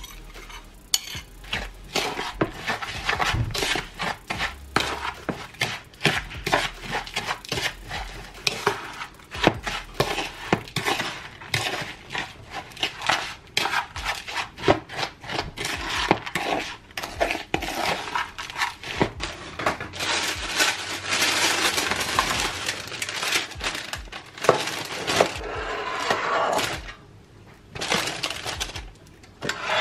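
A spoon stirring and scraping a buttery biscuit-crumb mixture in a bowl, with frequent irregular clinks and knocks of the spoon against the bowl's sides.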